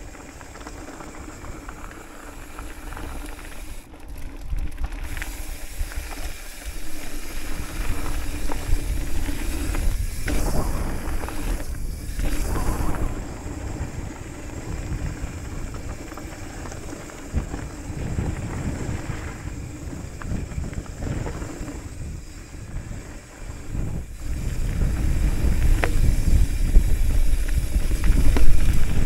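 Hardtail mountain bike rolling fast down a dirt singletrack: tyres rumbling and crunching over dirt and gravel, with scattered clicks and rattles from the bike, under wind buffeting the microphone. It grows louder over the last few seconds.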